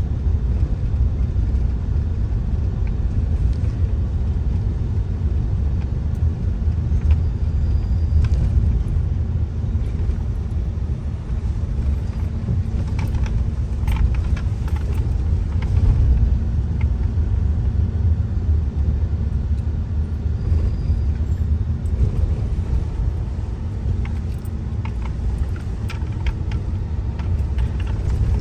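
A car driving along a road: a steady low rumble of engine and tyres, with a few light clicks and rattles partway through.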